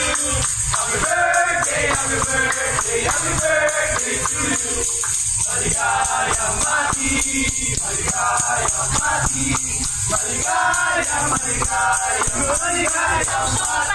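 Upbeat dance music with a steady beat and a shaker-like rattle, with singing over it, played for a birthday dance routine.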